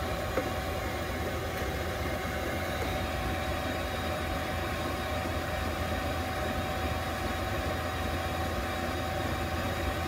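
Chinese diesel air heater running steadily at full output: a low, even hum from its blower and burner with a thin steady whine above it.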